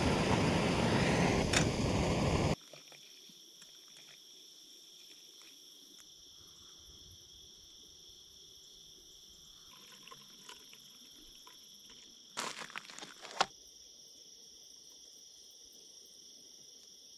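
Background music that cuts off suddenly about two and a half seconds in. It gives way to a faint, steady insect chorus at a few high pitches. About twelve seconds in, there is a second of crackling rustle.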